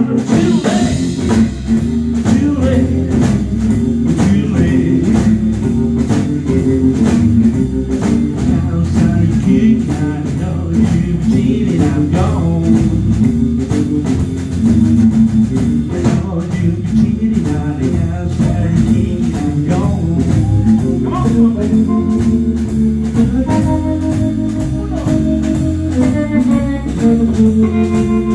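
Live blues band playing: amplified electric guitar, bass guitar and drum kit keeping a steady beat, with held melodic notes over the top.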